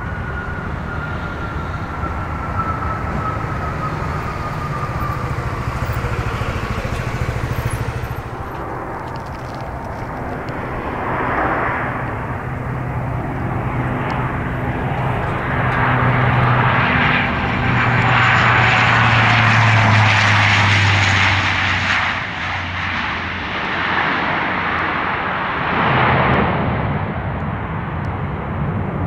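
A jet airliner on the runway with its engine whine slowly falling in pitch, then a De Havilland Canada Dash 8-400 turboprop landing close by. Its six-bladed propellers make a steady low drone that swells to its loudest as the plane passes and then eases, with a brief rush near the end.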